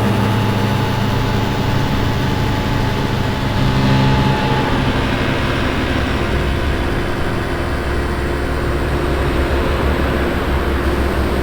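Synthesized ambient drone from a modular synth patch in the miRack emulator: steady low droning tones over a noisy hiss. A fainter higher tone fades out about four seconds in.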